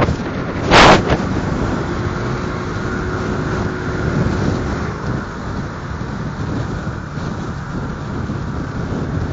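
Wind rushing over the microphone of a moving motorcycle, a steady low rumble of wind and engine noise, with one loud gust about a second in.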